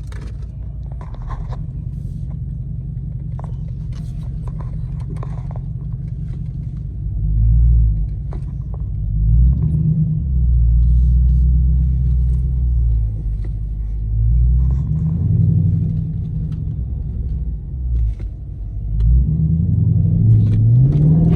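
A 2018 Dodge Charger R/T's 5.7-litre Hemi V8 heard from inside the closed cabin. It runs steadily low for about the first seven seconds. Then it is driven under throttle, the revs swelling and falling several times and climbing again near the end.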